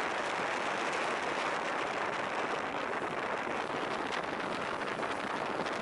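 Steady rushing of wind and water heard from a moving boat at sea, with no engine tone standing out.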